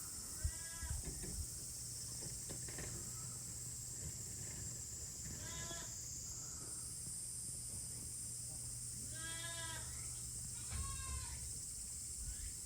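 Goat kids bleating: four short calls spread across the span, heard over a steady high-pitched hiss.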